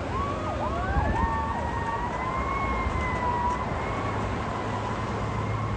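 Fire engine sirens: a fast, repeating electronic yelp during the first couple of seconds, overlapped by a long siren tone that rises slowly and then holds steady. A vehicle engine runs underneath.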